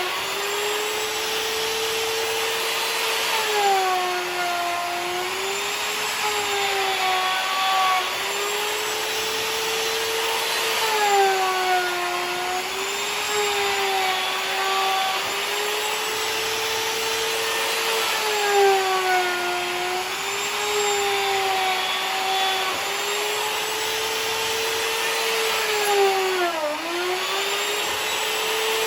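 Electric router milling a walnut tabletop flat: a high motor whine over cutting hiss, its pitch sagging and recovering every two to three seconds as the bit takes load, with one sharper, deeper dip near the end.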